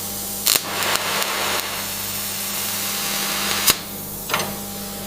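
Factory machinery running with a steady hiss over a low hum, with a few sharp mechanical knocks, one about half a second in and two more late.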